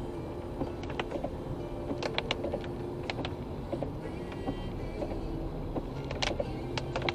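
Car cabin sound while driving on a wet road in rain: a steady low hum of engine and tyres, with a few irregular sharp ticks and taps.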